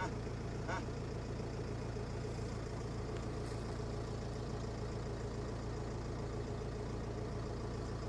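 A steady low mechanical hum that holds at one even level throughout.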